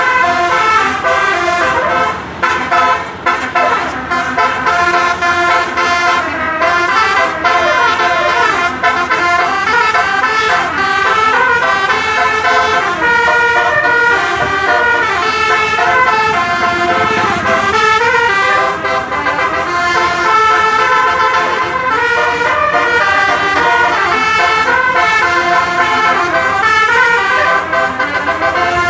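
Bus telolet horn, a Rahma 18-note multi-trumpet air horn, playing a long run of changing honked notes as a tune, without a break.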